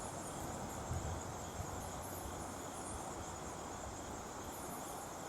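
Steady outdoor river ambience: an even rush of flowing water with a brief low bump about a second in.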